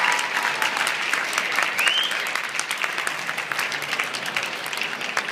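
Audience applauding, with a short rising whistle about two seconds in.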